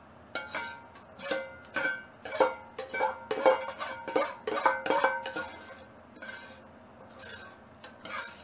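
Metal ladle scraping and knocking around the inside of a wok, about a dozen strokes with a brief metallic ring after each.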